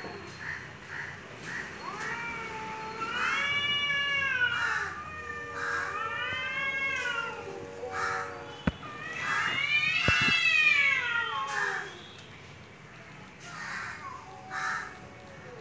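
Two domestic cats caterwauling in an aggressive standoff: long drawn-out yowls that rise and fall in pitch, one after another, the loudest about ten seconds in. After that they ease off into shorter, softer calls.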